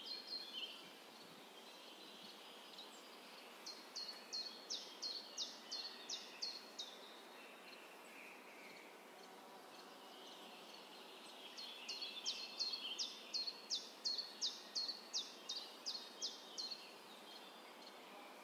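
Outdoor ambience with a songbird singing two runs of repeated high, falling notes, about four a second and each lasting several seconds, over a faint steady hiss.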